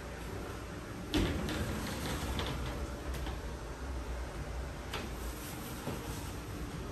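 Framed glass sliding shower door pushed open along its track: a knock about a second in, then a short run of clicks and rattles, with a few single clicks later.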